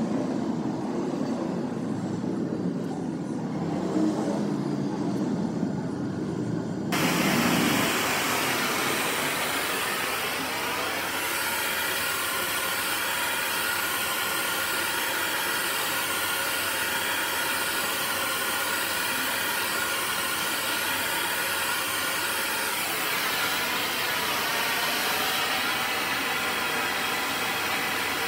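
A gas heating torch's flame hissing steadily as it heats a motor shaft. For about the first quarter there is a lower, muffled rumble; then the sound switches abruptly to the full, bright hiss of the flame.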